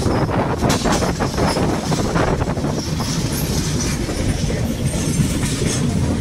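Passenger train running along the track, heard from an open coach door: a steady rumble of wheels on rails with rail-joint clacks in the first second or so.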